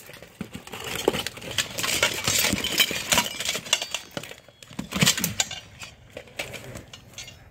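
Steel plate armour clanking and scraping as two armoured fighters grapple on the ground, a steady run of irregular metallic clinks and knocks.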